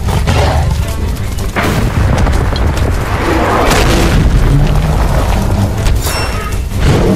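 Loud, dense action music layered with heavy boom sound effects, with sharp hits about one and a half, three and a half, and six seconds in.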